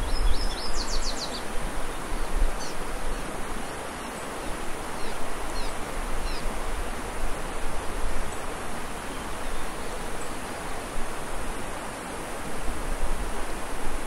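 Steady rushing of a mountain stream, with wind buffeting the microphone at the start and again near the end. A few faint, high chirps in the first several seconds.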